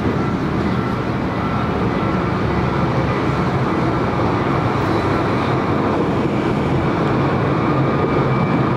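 Korail Class 8200 electric locomotive and its passenger coaches rolling past at close range: a steady rumble of motors and wheels that grows slightly louder as the locomotive draws level.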